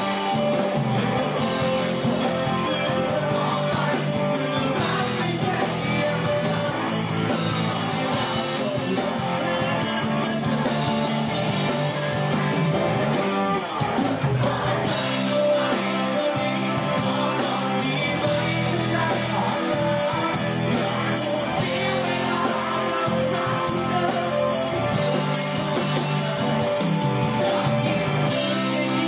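A live band playing a rock/pop song, with a male singer singing into a microphone over electric guitar and keyboard.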